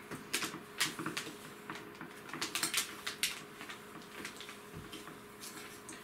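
A spoon scraping and clinking irregularly against a glass bowl as softened, room-temperature butter is creamed with sugar. The clicks come several a second in the first half and thin out towards the end.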